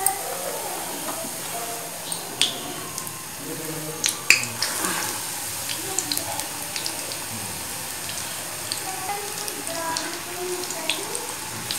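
Besan-battered batata vada deep-frying in hot oil in a small kadhai: a steady sizzle and bubbling, with a few sharp clicks, the loudest about two and a half and four seconds in.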